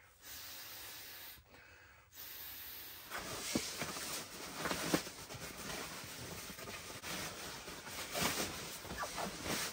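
Nylon sleeping bag and sleeping pad rustling and swishing as the bag is unrolled and spread over the pad on a camp cot, starting about three seconds in after a faint hiss.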